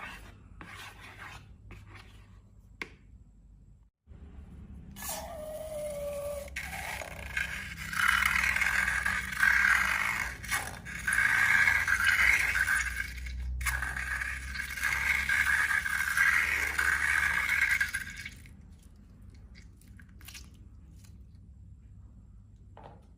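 Slime-making scraping: light scattered clicks, then a long, loud stretch of scraping from about five seconds in that stops near eighteen seconds, followed by a few faint clicks.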